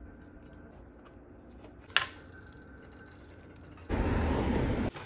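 Quiet background with a single sharp knock about two seconds in, then about a second of low rushing noise near the end.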